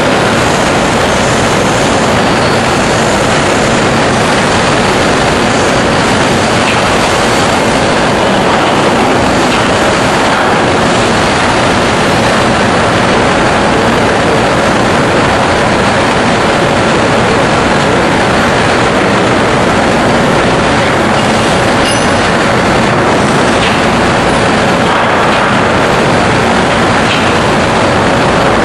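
CM565D bridge-type high-speed CNC machining center running, a steady dense mechanical noise with a faint constant hum.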